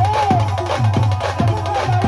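Live band music with a steady, driving drum beat of about two to three strokes a second, under a single sustained melody line that slides up and down in pitch.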